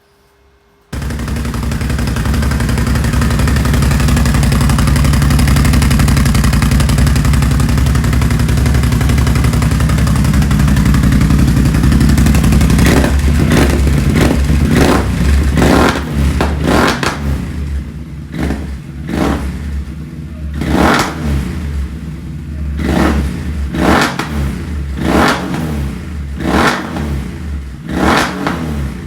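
2021 Can-Am Renegade's Rotax V-twin engine running through a newly fitted Yoshimura slip-on exhaust. It comes in loud about a second in, runs steadily for some ten seconds, then is revved in a series of quick throttle blips, roughly one a second.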